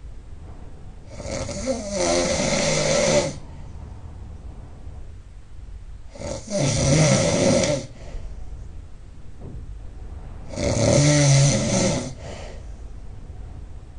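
A person snoring really loud: three long snores, each lasting about one and a half to two seconds, coming about every four and a half seconds.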